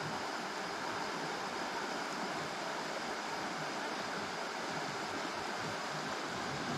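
Steady rushing of a creek running full, an even hiss of flowing water with no other events.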